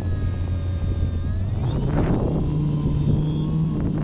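Electric motor and propeller of an RC airplane running steadily in flight. About two seconds in, the pitch rises as throttle is added, with a brief rush of air noise.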